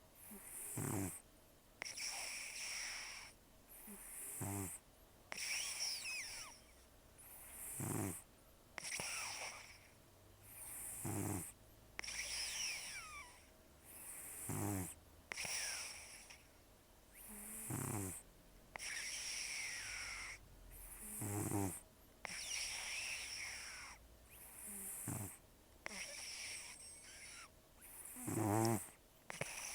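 Elderly cat snoring in its sleep, with a very rough snore and thin whistling nasal squeaks on each breath, about one breath every three and a half seconds.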